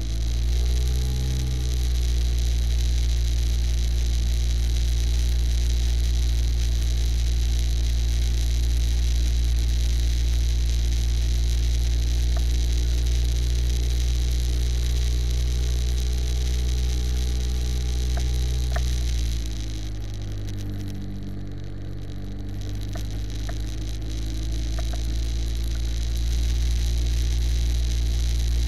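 Aircraft engine and propeller heard from an onboard camera, running steadily in flight with a strong low rumble. About 19 seconds in the throttle is eased back, and the pitch drops and the sound gets quieter; a few seconds later it is opened up again and the pitch climbs back.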